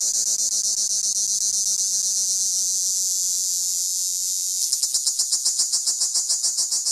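Cicada singing: a high-pitched, steady buzz that changes about two-thirds of the way through into a rapid, even pulsing of about five or six pulses a second.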